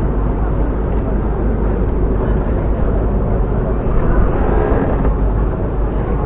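Steady rumble of a river tour boat under way, a constant noise heaviest in the low end with no sudden events.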